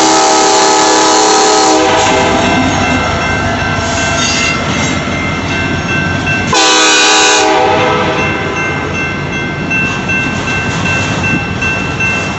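Union Pacific diesel locomotives passing, their multi-chime air horn sounding a chord that stops about two seconds in, then a short second blast about halfway through. The rumble and wheel noise of the moving train run under it.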